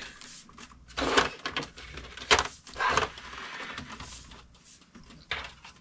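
Handling noise of a Sony VAIO all-in-one computer being lifted and turned around on a desk: several scrapes and knocks, the sharpest a little over two seconds in.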